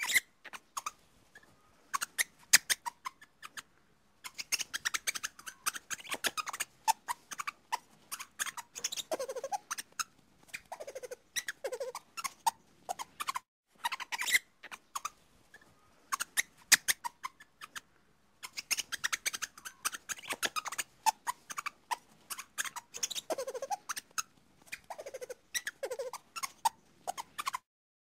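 Lemur calling in rapid, high-pitched squeaky chirps that come in quick clicking runs, broken by short pauses, with a few lower, shorter calls mixed in.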